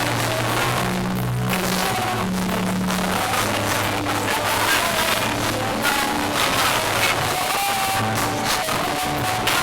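Music with held bass notes changing about every second and a regular beat.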